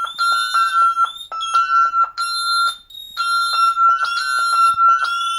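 Many alarm keypad sounders on an Ademco Vista-10SE panel sounding a fire alarm together. Their shrill tones overlap out of step: one steady high tone with others chirping in and out, and a short break about three seconds in.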